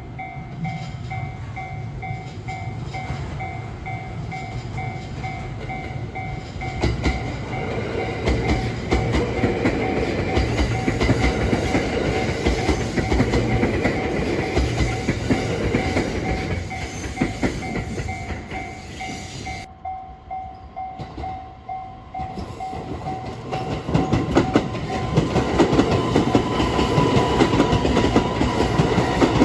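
Train passing over a level crossing, its wheels clattering over the rail joints, while the crossing's warning bell rings with a steady pulsing beat. The bell cuts off about 20 seconds in, and the train noise grows louder again near the end.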